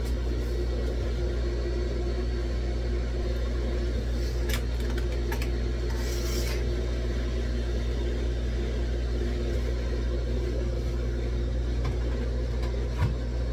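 Steady low mechanical hum of a machine running in a small room. About six seconds in, a short scrape as a grommet curtain's rings slide along its rod, with a few light clicks just before.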